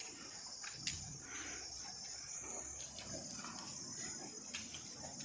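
Faint outdoor ambience with a steady, high insect chirring, and a single faint click about a second in.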